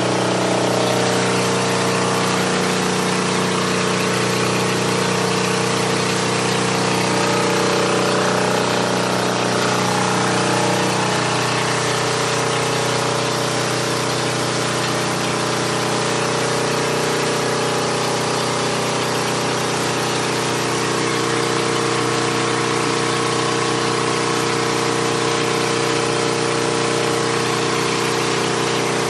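Hot water pressure washer running steadily, its engine and pump giving a constant note under a loud hiss. The note shifts slightly about eleven seconds in.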